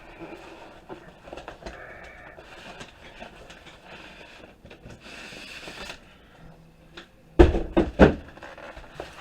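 Unpacking a cardboard box: rustling and small handling clicks, then three or four heavy knocks in quick succession near the end as something is knocked or set down.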